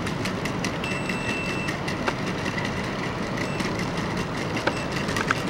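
Unitree A1 quadruped robot dogs walking on stone paving: a steady whir from their leg motors, light foot taps, and a thin high tone briefly about a second in.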